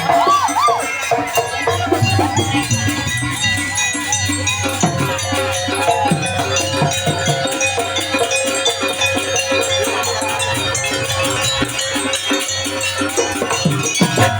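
Live Banyuwangi jaranan music for a barong dance: dense, fast, even percussion with a rattling clatter, under a melody of sliding and long-held tones.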